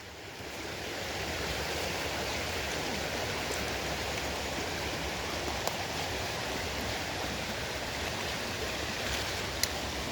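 Steady rushing water of a stream or waterfall, fading in over the first second or so.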